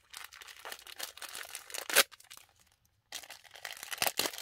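Crinkling and crackling of a plastic pocket-tissue packet being handled as the tissues are pulled out of it. It comes in two spells with a short pause between them, and the loudest crackle is about two seconds in.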